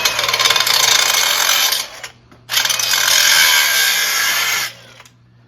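Angle grinder cutting into a steel frame in two bursts of about two seconds each, with a short break between them.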